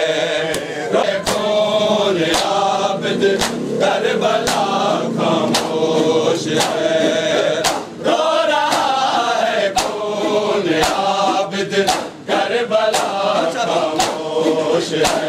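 Group of men chanting a noha in chorus, with rhythmic chest-beating (matam): a sharp slap about once a second under the singing.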